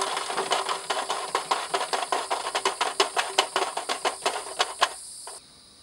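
A crashed Hero Honda Passion motorcycle lying on its side, ticking rapidly and unevenly at about six ticks a second over a steady hiss. The sound fades slowly, then stops abruptly a little over five seconds in.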